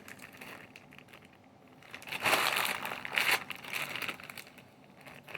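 Packaging crinkling as it is handled, in uneven rustles: quiet at first, loudest a little past two seconds in, with a few smaller crinkles after.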